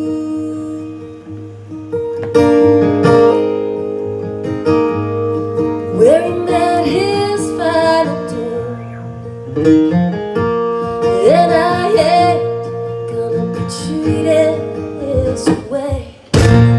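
Live band music: strummed acoustic guitar with electric bass underneath and a melody line that slides up into its notes. The music dips briefly near the end, then comes back in full.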